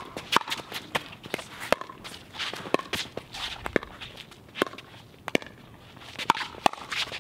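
Doubles pickleball rally: paddles strike the plastic ball in sharp, irregularly spaced clicks, mixed with players' footsteps and shoe scuffs on the hard court.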